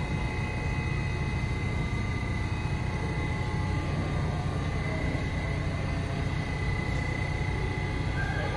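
R68 subway train at the platform: a steady low rumble with a thin, steady high-pitched tone running through it.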